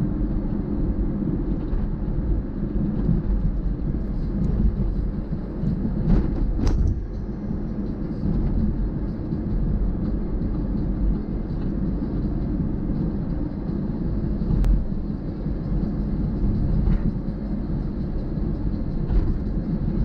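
Steady low rumble of a vehicle driving on the road, with a few faint clicks and knocks now and then.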